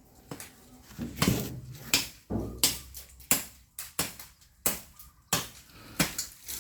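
Bamboo being chopped by hand with a blade: a steady series of sharp strikes, about three every two seconds, starting about a second in.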